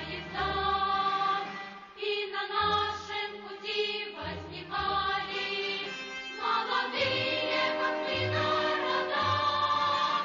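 A choir singing a song over instrumental backing, with long held notes and a bass line in short repeated notes.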